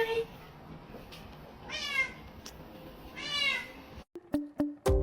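A cat meowing: the tail of one meow at the start, then two short meows about a second and a half apart. Music starts abruptly near the end.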